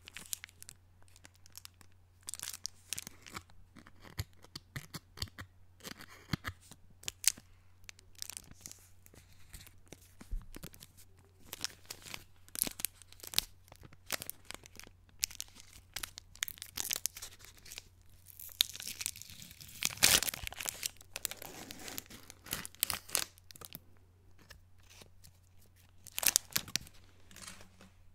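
Kit Kat bar's wrapper crinkled and torn open by hand close to the microphone: a run of sharp crackles and rustles, with the loudest tearing burst about two-thirds of the way through.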